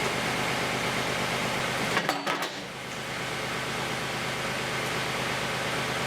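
An engine running steadily, with a low hum, to drive the hydraulics. About two seconds in there is a sharp knock. After it the low engine hum drops away and a steady noise goes on.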